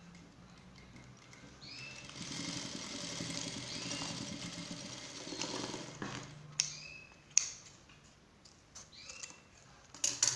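Industrial lockstitch sewing machine running a short seam for about four seconds, starting about two seconds in and stopping near the middle. A few sharp clicks follow, the loudest sounds here.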